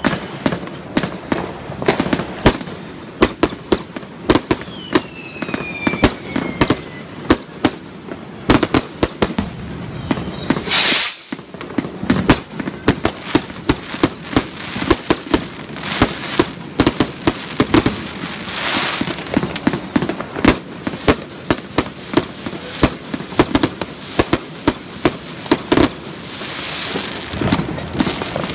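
Fireworks going off in a rapid, continuous string of sharp bangs, several a second. A falling whistle comes about five seconds in, and there is a loud hiss near the middle and again near the end.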